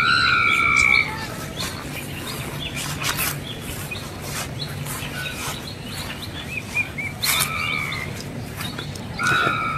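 Birds calling: a loud whistled call about a second long right at the start, similar calls near the end, and short chirps between.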